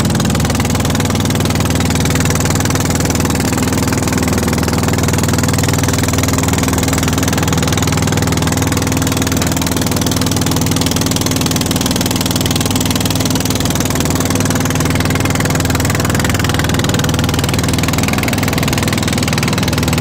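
An engine running steadily at constant speed, a loud even drone with a strong low hum.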